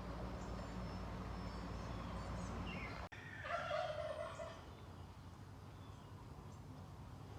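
A short animal call, rising to a peak for about a second just after a sudden cut in the sound. Before the cut there is a steady low hum.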